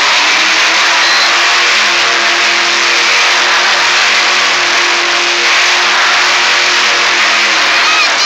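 Monster truck's supercharged V8 engine running hard at steady high revs while the truck spins donuts on the arena dirt.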